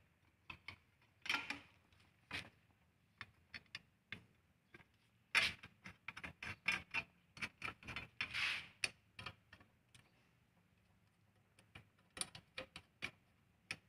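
Scattered light clicks, knocks and scrapes of a small diesel engine's side cover being fitted into place and fastened by hand, with a short lull about two-thirds of the way through.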